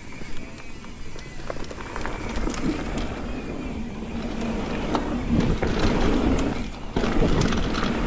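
Mountain bike being ridden on dirt singletrack: a steady rush of wind and tyre noise with scattered clicks and rattles from the bike, building over the first two seconds as it gathers speed.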